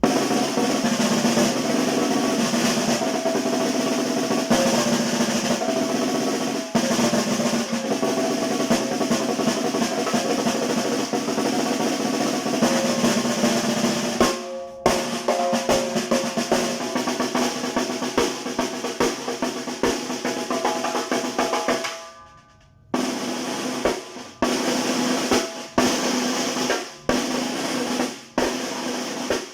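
Tarola, the Mexican banda snare drum, played with sticks in sustained rolls and patterns, its head ringing with clear pitched tones because it has no snare wires fitted. The playing runs long, breaks briefly about halfway, pauses again about three-quarters through, then comes in several short phrases.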